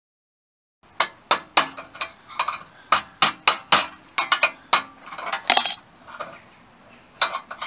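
Hammer striking a steel drift set against a steering bearing race inside the headstock of a Honda XL250S frame, knocking the race out: a quick, uneven run of sharp metal-on-metal strikes, each with a brief ring. The strikes start about a second in.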